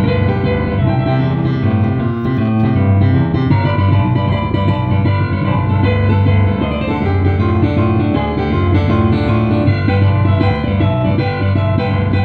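Digital piano played continuously, a strong low bass line under chords and melody notes.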